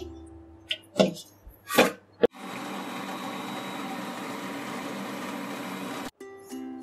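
A few knocks as the bowl is loaded. Then a Braun CombiMax 600 food processor runs steadily for nearly four seconds, blending cooked tomatoes into purée, and cuts off suddenly.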